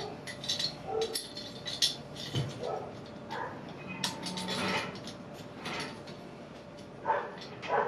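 Irregular knocks, clicks and scraping as melamine cabinet panels are handled and a corner clamp is fitted to hold them together.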